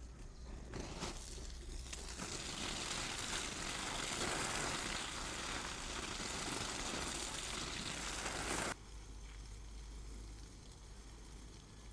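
Water from a garden hose spraying onto corn leaves and soil: a steady splashing hiss that builds over the first couple of seconds. It drops off abruptly about three-quarters of the way through to a much quieter background.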